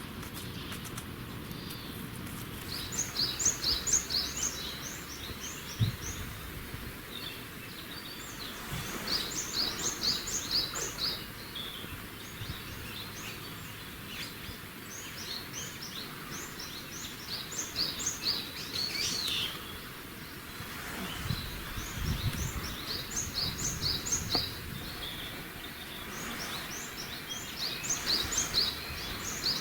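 A small songbird singing the same phrase over and over, a quick run of high notes jumping between two pitches, about once every six seconds.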